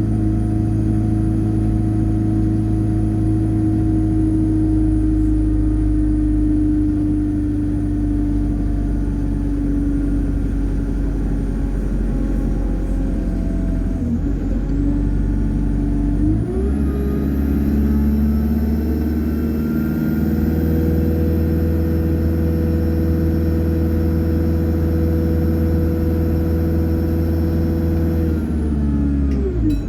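Alexander Dennis Enviro200 bus under way: the engine runs with a high, thin turbocharger whine over it. About halfway through, the engine note steps up and the whine climbs higher as the bus accelerates, holds there, and then falls away just before the end.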